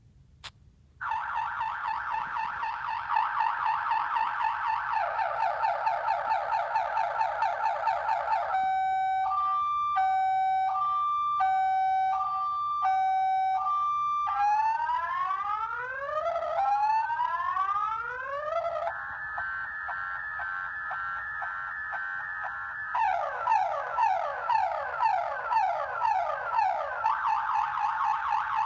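Viper car alarm siren sounding in full panic mode, cycling through its tones: a fast warble, a high-low two-tone alternation, rapid rising whoops, a steady tone, quick chirps, then the warble again. A short click comes just before the siren starts about a second in.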